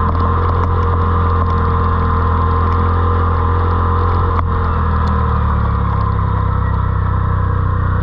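Side-by-side UTV engine, a Yamaha Wolverine RMAX, running steadily while riding, its pitch easing down slightly about five seconds in.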